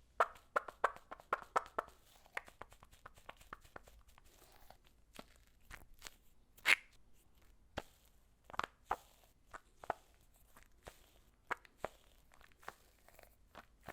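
Sticky slime ball being squeezed and worked by hand, giving irregular sticky clicks and pops. They come in a quick flurry at first, then more sparsely, with the loudest pop about seven seconds in.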